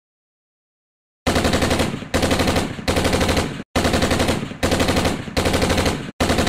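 Machine-gun fire sound effect: a string of short, rapid-fire bursts, each under a second, back to back, starting about a second in after silence.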